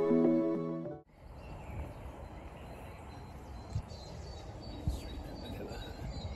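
Background music cuts off about a second in, giving way to outdoor ambience: a low rumble of wind on the microphone with faint birdsong, and two soft knocks a little past halfway.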